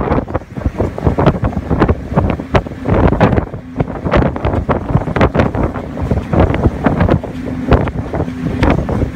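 Wind gusting hard against the microphone on the open deck of a moving passenger ferry, in irregular buffets, with the boat's steady low engine hum faintly underneath.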